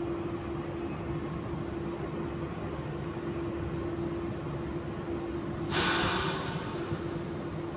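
Inside a stationary AM-class electric train: a steady electrical hum from the train's onboard equipment. About six seconds in comes a sudden hiss of released compressed air, lasting about a second.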